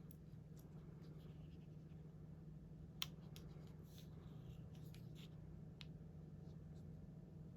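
Quiet handling of paper planner stickers: faint rustles and light ticks, with one sharper click about three seconds in, over a low steady hum.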